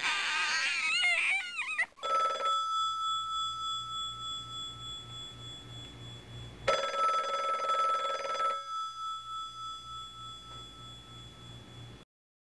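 A wavering, wailing cry that stops about two seconds in, then a bell struck twice, each stroke ringing on and slowly fading. The sound cuts off suddenly near the end.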